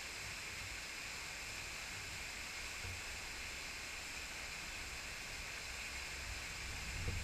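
Small waterfall pouring into a shallow rocky creek: a steady, even rush of falling and running water.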